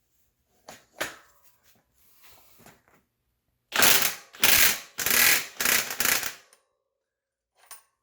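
Impact wrench hammering on a freewheel removal tool in four short bursts of about half a second each, after a few light clicks of the tool being set on. It is trying to break loose a seized steel freewheel bonded to an aluminium hub by galvanic corrosion, and the freewheel does not budge.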